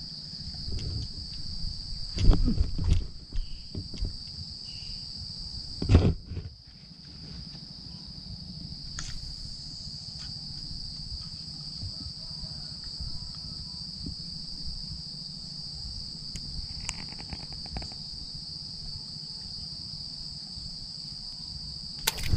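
Insects calling in one steady, high-pitched drone that does not let up, with a few dull thumps about two seconds and six seconds in.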